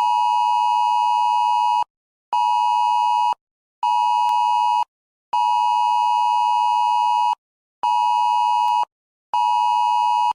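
Electronic alert tone sounding for a new tornado emergency: a steady mid-pitched beep in a long-short-short pattern, played twice over.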